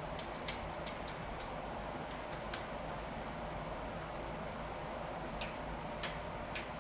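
Small metallic clicks and clinks of muffler mounting bolts and parts being handled and started into their threads by hand, scattered and irregular, the sharpest about two and a half seconds in, over a steady faint hiss.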